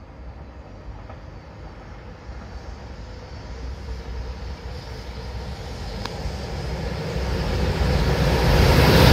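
EH200 electric freight locomotive hauling Taki 1000 tank wagons, approaching and running through the station; its rumble grows steadily louder as it nears.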